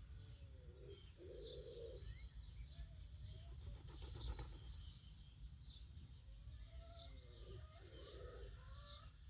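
Quiet morning birdsong: many small birds chirping and whistling, with a low dove-like coo twice, about a second in and near the end, over a steady low rumble.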